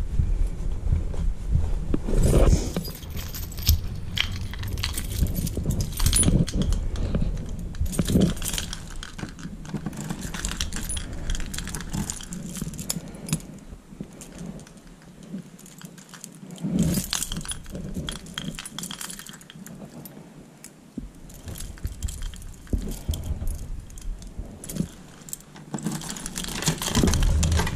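Keys jangling, with irregular clicks, knocks and rustling handling noise. It quietens for several seconds in the middle.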